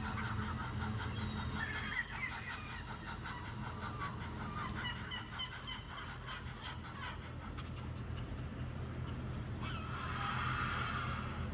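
Birds calling in short chirps over a steady low hum, with a burst of hiss near the end.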